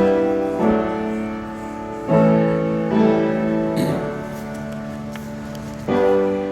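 Keyboard instrument playing slow, sustained chords, a new chord struck every second or two.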